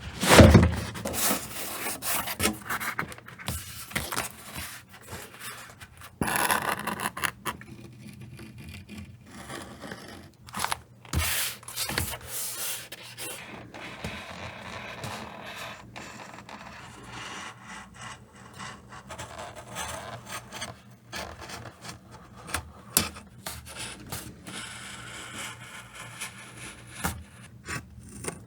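Leatherworking hand tools on leather: stretches of rubbing and scraping, with scattered taps and clicks and a sharp knock right at the start.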